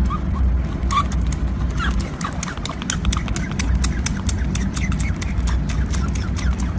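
Otter pup suckling at a milk bottle: quick irregular clicking sucks throughout, with short high rising squeaks, mostly in the first couple of seconds.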